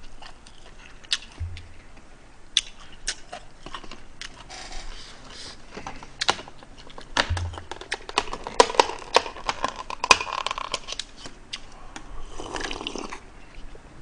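Eating and handling noises from takeout containers: scattered clicks and taps of chopsticks and plastic bowls and lids, with chewing. The handling grows denser and more crackly from about 8 to 11 seconds in, as something is worked in the hands over the bowls.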